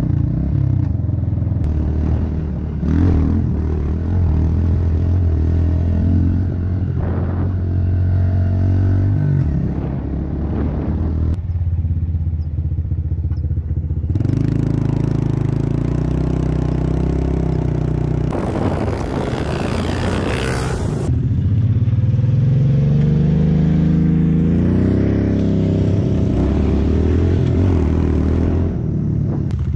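Pit bike engine running under way, its pitch rising and falling as the rider revs through the gears, heard close from the rider's helmet. A few seconds past the middle, a rushing noise swells over it.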